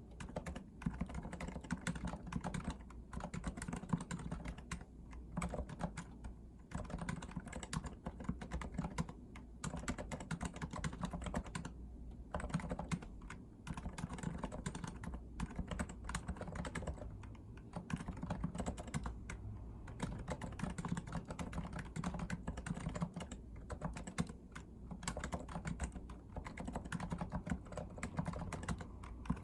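Steady, fast typing on a REALFORCE R2 PFU Limited Edition keyboard with Topre electrostatic capacitive switches: dense runs of low keystrokes, broken by short pauses every few seconds.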